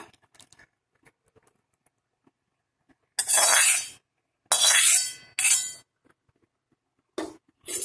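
A steel spoon scraping curry out of a metal cooking pan into a glass bowl: three scrapes from about three seconds in, then a few light clinks of the spoon against the glass near the end.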